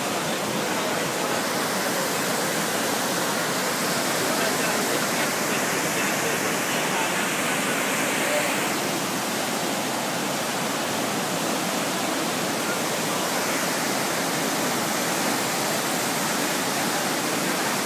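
Whitewater rapids of the Niagara River rushing: a loud, steady, unbroken noise of churning water.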